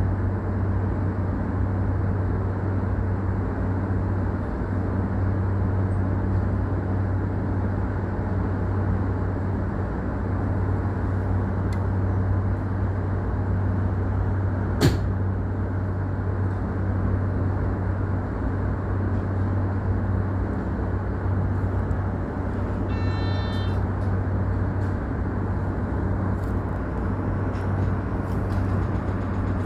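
Steady low hum inside an electric commuter train standing still. A single sharp click comes about halfway through, and a brief high ringing tone follows a little later.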